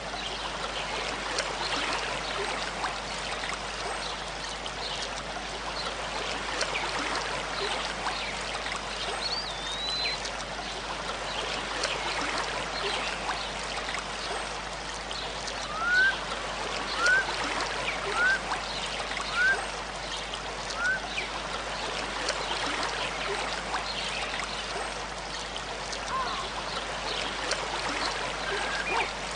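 A tall waterfall's falling water rushing steadily. Around the middle a bird calls five short rising notes about a second apart, with one higher call a little earlier.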